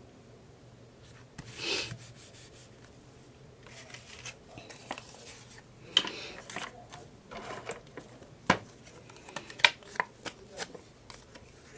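Paper and cardstock pieces being handled on a table: rustling and sliding, with a brief louder rustle about two seconds in and several sharp taps and clicks through the second half.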